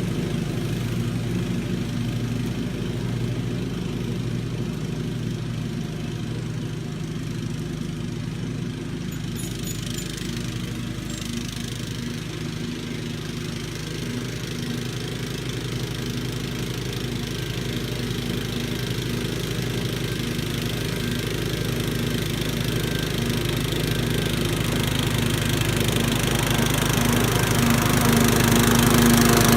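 Kohler Command CV14 single-cylinder engine running steadily, picking up speed and getting louder over the last few seconds.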